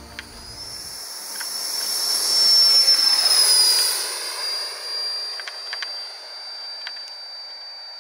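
Electric ducted-fan motor of a large RC Viperjet model jet at high power: a steady high-pitched whine that rises in pitch early, grows loudest about two to four seconds in, dips slightly in pitch as the jet passes, then fades. Music fades out about a second in.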